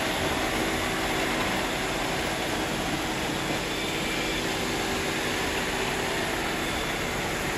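iRobot Roomba robot vacuums running on a hardwood floor: a steady whir of suction motors and spinning brushes, with a faint steady hum.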